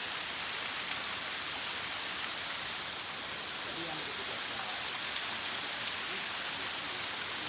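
Steady rushing of a waterfall, with faint voices in the background.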